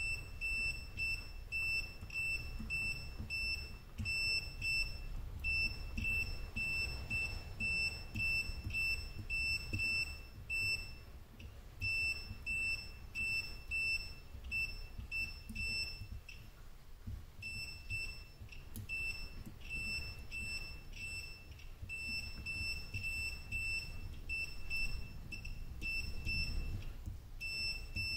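Digital multimeter's continuity beeper giving a quick run of short high beeps, two or three a second with a couple of brief pauses, as the probe is touched to one soldered battery cell after another. Each beep signals continuity: that cell is electrically connected to the copper bus bar, not a cold joint.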